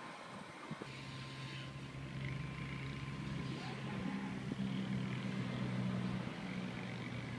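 A car engine running with a steady low hum, growing louder over several seconds as the car approaches on the road, loudest shortly before the end.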